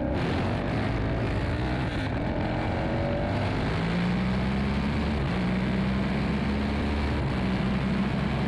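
An engine running with a steady drone, its pitch climbing gently over the first few seconds, then holding.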